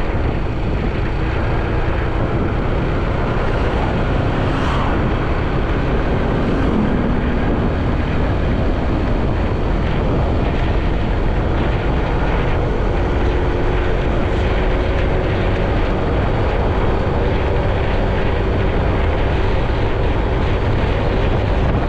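Motorcycle running steadily on the road with heavy wind buffeting the microphone, a constant dense rumble.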